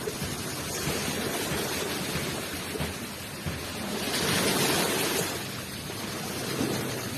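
Ocean surf washing onto the shore: a steady rushing wash, with one wave swelling louder and hissier about four seconds in before falling back.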